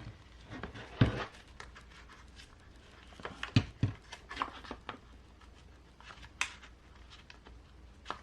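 Small hard parts being handled and set down on a workbench: scattered sharp clicks and taps, with the loudest pair about three and a half seconds in.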